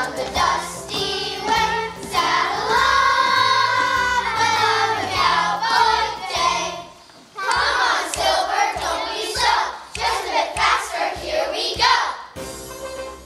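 A children's choir singing together over musical accompaniment, with a short break about seven seconds in; the singing ends near the close.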